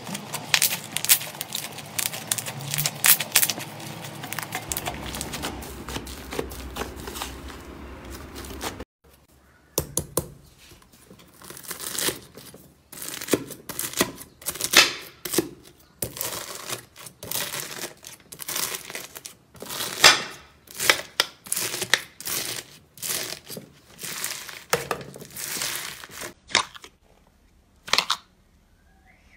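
Hands squishing and pulling apart a fluffy cloud slime, a steady crackling and tearing. After a break, a knife cutting through a bead-covered crunchy slime gives a run of sharp crunches and pops, several a second, thinning to a few soft clicks near the end.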